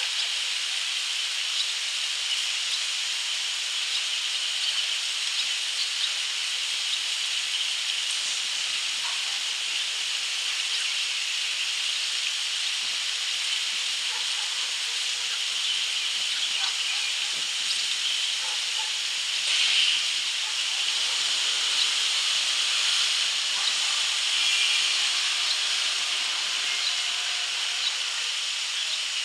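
A steady high-pitched hiss, with a few faint short ticks and chirps over it and a brief louder rasp about twenty seconds in.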